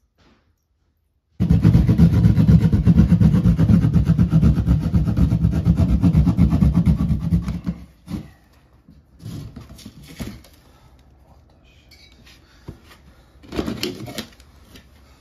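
Reciprocating saw running hard as its blade cuts through drywall for about six seconds, then stopping. A few knocks follow, and a scraping crunch near the end as the cut piece of drywall is pulled free.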